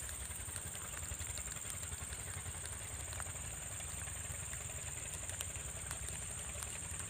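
Engine of a gold-mining suction pump running steadily, heard as a continuous low drone, with a steady high-pitched whine above it.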